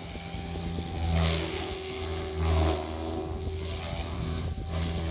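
XL Power Specter 520 radio-controlled helicopter in flight: a steady motor and gear hum under the whoosh of its main rotor blades. The sound swells loudly and falls back about every second and a half.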